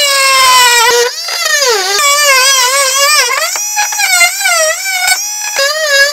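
Corded oscillating multi-tool plunge-cutting through a plywood coop wall to cut out a window opening: a steady high whine whose pitch wavers and sags as the blade bites, dipping briefly about a second in and again a couple of times later.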